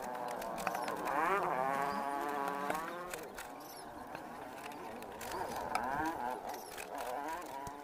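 Two long, drawn-out animal calls whose pitch bends, the first about a second in and a weaker one about five seconds in.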